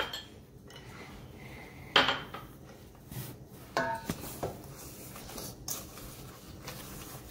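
Wooden spoon stirring thick batter in a stainless steel mixing bowl: soft scraping throughout, with a sharp knock against the bowl that rings about two seconds in and a second, shorter ringing knock near four seconds.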